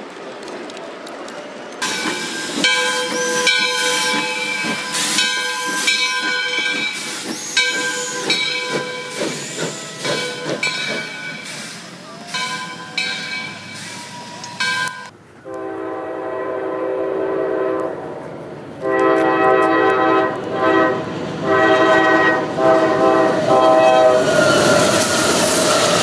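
Steam locomotive whistle blowing a series of blasts over hissing steam. After a cut about halfway through, a diesel passenger locomotive's multi-note air horn sounds several long blasts as the train rushes past.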